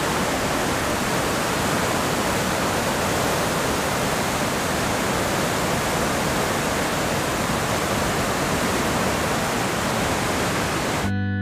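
Whitewater rapids of the fast Kunhar River rushing, a loud, steady roar of churning water.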